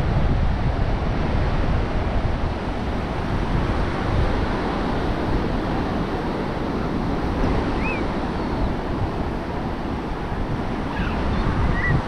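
Ocean surf washing onto the beach, a steady rushing noise, with wind buffeting the microphone as a low rumble.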